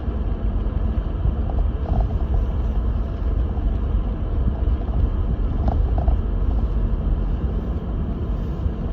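Lexus GX470 SUV driving on a snow-covered road: a steady low rumble from its 4.7-litre V8 and tyres.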